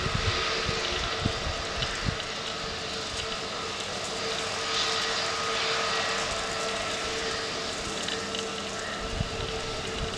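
Airbus A320neo jet engines running steadily as the airliner moves along the runway: a constant hiss with a steady hum and a high whine.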